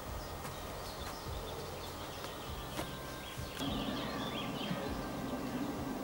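Outdoor ambience on a camcorder track: steady background noise with a few faint bird chirps. About three and a half seconds in, the background grows a little louder and fuller and the chirping thickens.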